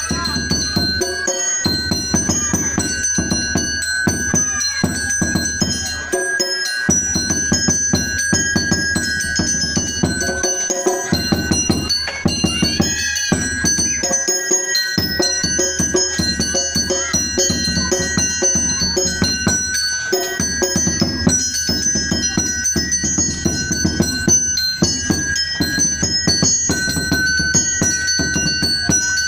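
Music with a fast, steady beat, led by struck mallet percussion and bells over drums.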